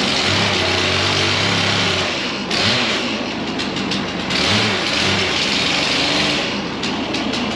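Wood-Mizer LT15 Wide electric band sawmill running with its blade cutting through a log: a steady noisy sound over a low motor hum. The sound thins briefly about two and a half seconds in and again near the end, with a few ticks.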